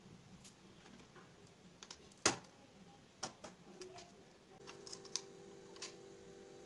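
Faint clicks and knocks of a metal springform cake pan being handled, with one sharp click a little over two seconds in as its side latch is snapped open and the ring released. A faint steady hum comes in near the end.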